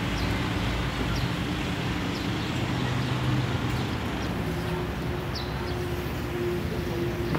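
Steady outdoor hum of vehicle engines and traffic, with low tones that shift partway through, and a few short high chirps.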